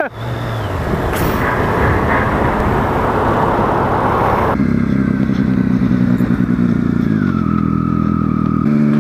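Triumph Street Triple's inline-three engine running under way with heavy wind noise. About four and a half seconds in the wind noise drops away sharply, leaving a steadier engine note that falls in pitch near the end as the bike slows.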